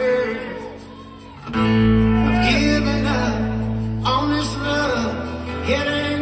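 Live band music: acoustic guitars strummed with singing. The music thins out and drops in level about half a second in, then comes back in full with low bass about a second and a half in.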